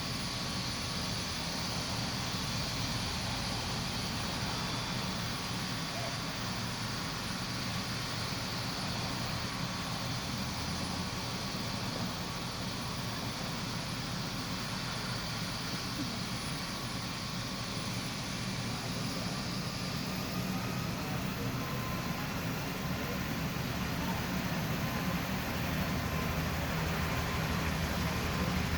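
Helicopter running on the ground with its rotor turning: a steady engine and rotor noise with a thin high turbine whine, which rises in pitch about two-thirds of the way through as it builds up power for takeoff.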